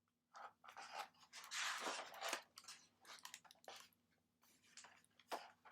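Paper rustling and small taps as the pages of a picture book are handled and turned, loudest about one and a half to two and a half seconds in.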